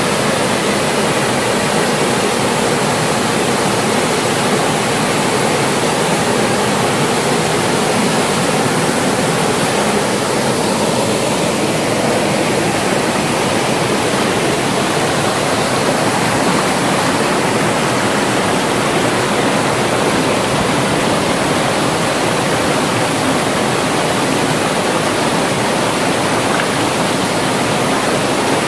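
Mountain stream pouring over a small waterfall and cascading between boulders: a steady, loud rush of water.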